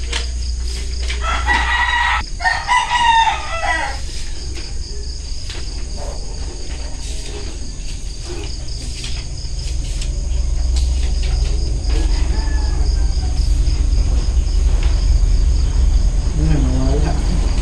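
A rooster crows once, beginning about a second in and lasting a little over two seconds, over a steady high chirring of crickets.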